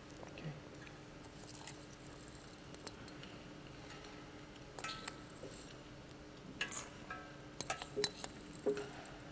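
Faint scattered metallic clinks and taps, a few ringing briefly, with a cluster of them in the last third, over a low steady hum.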